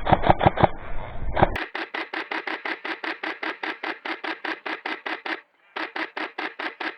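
Airsoft electric gun firing on full auto: rapid, even cracks about six or seven a second in long bursts, with a brief pause about five and a half seconds in. The background hiss drops out suddenly about a second and a half in while the firing carries on.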